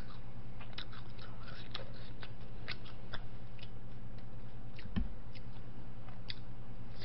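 Close-up chewing of food: soft wet mouth clicks and smacks, with a low knock about five seconds in, over a steady low hum.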